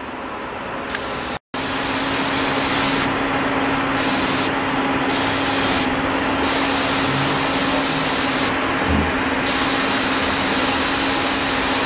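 Steady machine whir and hiss with a low constant hum. It drops out briefly about a second and a half in, then runs on steadily.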